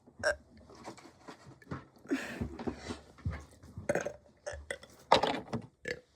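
A child burping several times in a row, the loudest burp near the end.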